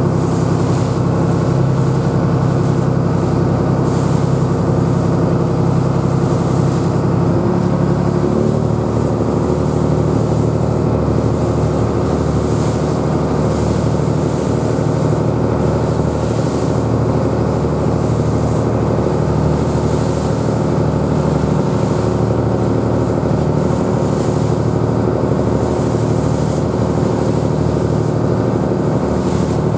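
Small ferry boat's engine running steadily under way, with water rushing and splashing along the hull in a choppy swell. The engine note shifts slightly about eight seconds in.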